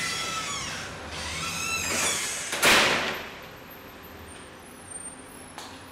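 Glass-and-metal street door squealing on its hinges as it is pushed open, with one loud knock about two and a half seconds in, then a quieter steady background.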